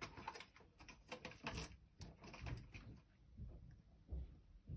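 Faint scattered clicks and rustles of a hand handling a small plastic tub of live feeder insects inside a glass vivarium.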